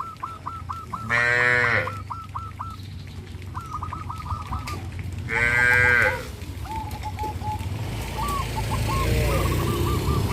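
Cattle mooing, two short loud calls about four seconds apart, among runs of quick high-pitched chirps. A low rumble builds near the end.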